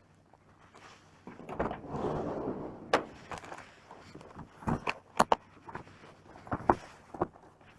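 Scattered sharp clicks and knocks, with a short rustling scrape about two seconds in, like handling of gear.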